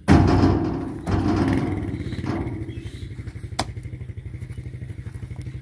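A vehicle engine running close by, starting abruptly and slowly fading. There is one sharp knock about three and a half seconds in.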